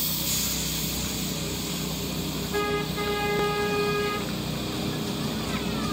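Small narrow-gauge steam locomotive's whistle sounding: a short toot and then a longer steady blast of about a second, following a fading hiss of escaping steam.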